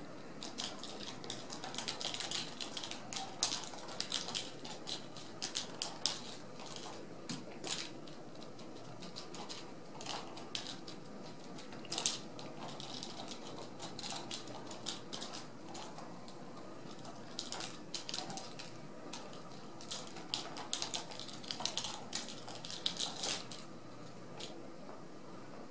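Ragdoll kittens pouncing and scrabbling on a rug after a wand toy: rapid, irregular clicking and scratching of paws and claws, in clusters, with the sharpest click about halfway through.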